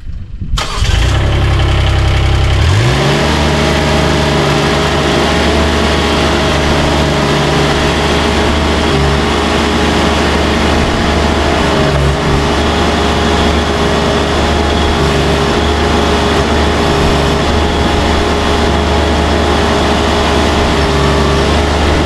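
Derette V1000 compact track loader's engine starting: it cranks for about two seconds, catches, then runs steadily. The engine drives the hydraulics through the newly replaced hydraulic coupler as the loader arm is worked.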